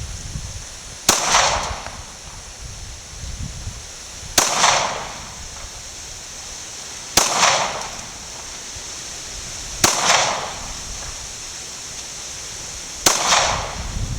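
Five single pistol shots from a 9mm Taurus G3c, fired slowly about three seconds apart. Each shot is a sharp crack that trails off over about half a second.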